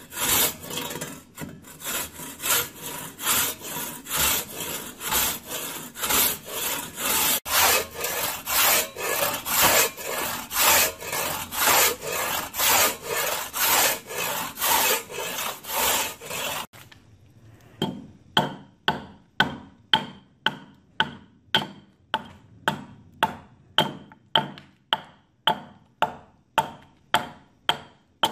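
A large-toothed Japanese madonoko saw rasping through an oak trunk in even strokes, about one and a half a second. About seventeen seconds in the sawing stops and a short-handled broad axe starts chopping into the oak, sharp strikes about twice a second.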